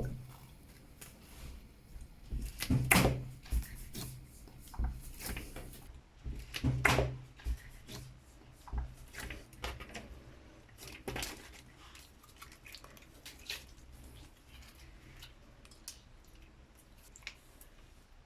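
Scattered clicks, taps and knocks of containers and utensils being handled while making slime, with two louder knocks about three and seven seconds in.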